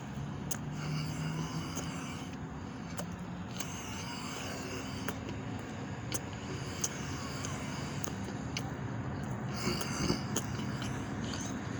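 Small birds chirping in short patches over a steady background of distant traffic, with scattered sharp clicks.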